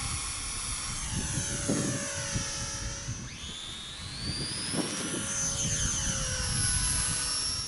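Electric motor and propeller of a Sport Cub 500 RC model plane whining just after a hand launch, at full throttle. The pitch sinks over the first few seconds, jumps up sharply about three seconds in, then climbs slowly.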